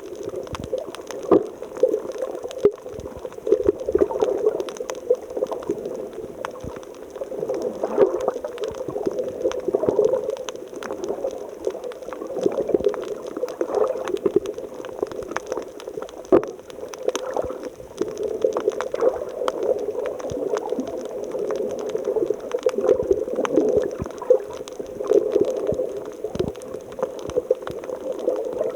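Water bubbling and gurgling without a break, full of small irregular pops and splashes.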